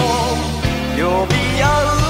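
1980s Japanese pop song: a male voice singing the melody over a band with a steady beat.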